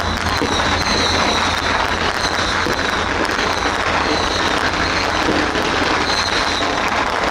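Fishing-boat engines running with a steady low hum under a dense, loud wash of noise, with a thin crackle of firecrackers throughout.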